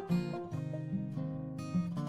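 Background music: acoustic guitar strummed and plucked in a light, steady rhythm.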